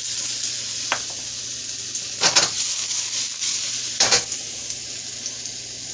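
Garlic sizzling in hot oil in a pan, with three short scrapes of a utensil stirring it: about a second in, a little after two seconds, and at about four seconds.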